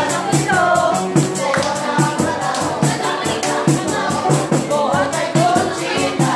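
Dance music with a singing voice over a steady, quick beat and busy percussion.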